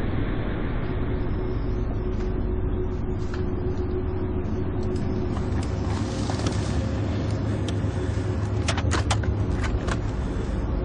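Steady low rumble of a car heard from inside the cabin, with a quick run of sharp clicks about nine seconds in.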